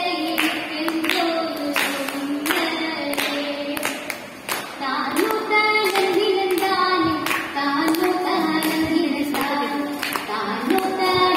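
A girl singing a Malayalam poem in long held, wavering notes through a handheld microphone, with sharp claps at a steady beat behind the voice.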